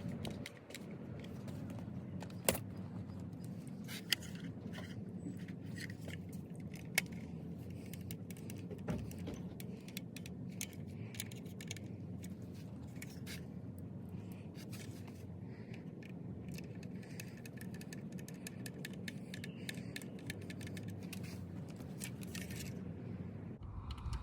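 Small scattered clicks and light metallic rattles of the power window switch parts and screws being handled and fitted back together, with a couple of sharper clicks, over a steady low hum.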